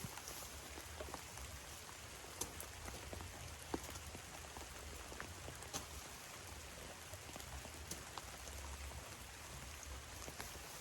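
Light rain falling, a steady hiss with scattered single drops ticking now and then.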